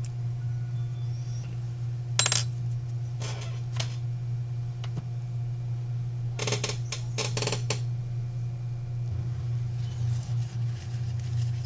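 Light clinks and taps of small metal repair tools: one about two seconds in, two more shortly after, and a quick cluster around six to seven and a half seconds. A steady low hum runs underneath.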